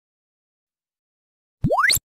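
Silence, then near the end a loud comedy sound effect: a single tone that sweeps up very fast from very low to very high pitch in under half a second.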